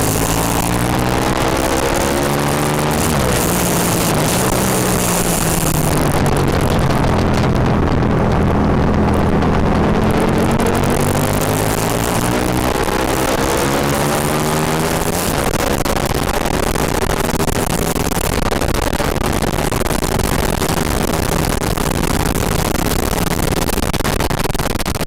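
Aprilia Tuono V-twin motorcycle engine being ridden hard on a circuit. The revs drop off a few seconds in, then climb again and again as it pulls through the gears, with rushing noise over the engine.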